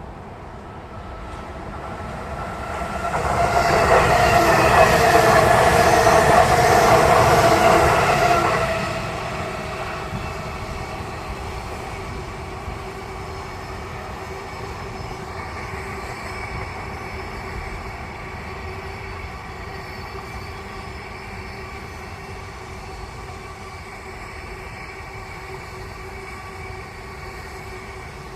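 A train passing, loudest for about five seconds near the start, then running on more quietly with a steady hum of several held tones.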